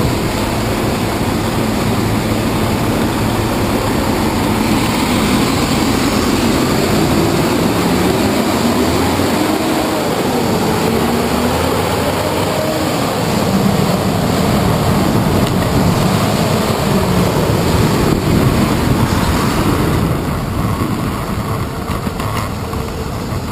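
Heavy city traffic close by: diesel buses running and idling alongside, a loud steady rumble with a wavering engine hum. It eases off a little near the end as the buses fall behind.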